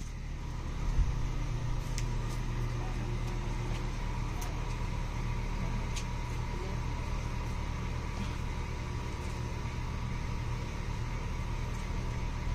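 Steady low mechanical hum with a thin, steady whine above it, from a machine running continuously. A few light clicks sound over it.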